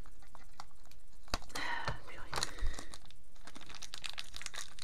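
Thin clear plastic packaging bag being pulled open and crinkled by hand, with a sharp click a little over a second in and a burst of crinkling just after.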